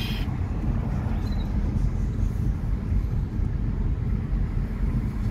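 Steady low rumble of a car driving slowly through town, heard from inside the cabin: engine and tyre noise.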